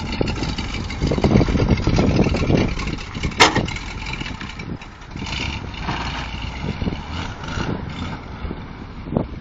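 Twin-turbo V8 engine of a Mazda RX-7 FC running, louder for a couple of seconds about a second in, with a single sharp snap a little after three seconds, then settling to a lower, steadier run.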